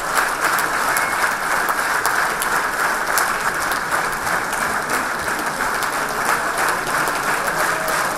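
Audience applauding steadily: many hands clapping in a continuous, even wash of claps.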